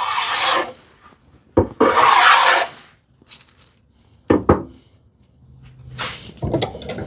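Hand plane cutting wood in separate strokes, shaving the sharp corner off a board's edge. There are two long strokes, then a short one and a final longer one.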